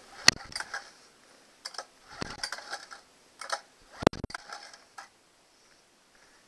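Recoil starter of a Honda 8 hp two-cylinder four-stroke outboard pulled several times, giving clusters of sharp mechanical clicks with a heavier knock about four seconds in: the engine is being cranked with its spark plugs out for a compression test, the bottom cylinder reading about 90 psi.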